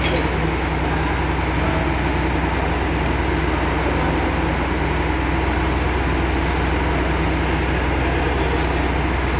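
Large diesel engine, most likely the crane's, running steadily at a constant speed, with a deep even hum.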